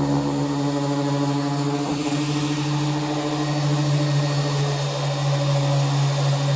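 Power sander running steadily on the car's bodywork: a constant motor hum over a broad hiss.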